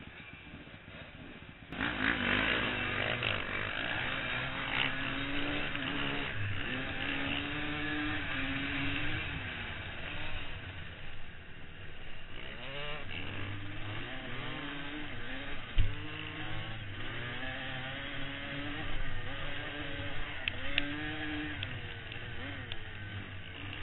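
Dirt bike engine revving up and down over and over, its pitch climbing and dropping as the rider accelerates and shifts. It starts loud about two seconds in, and a single sharp thump stands out about two-thirds of the way through.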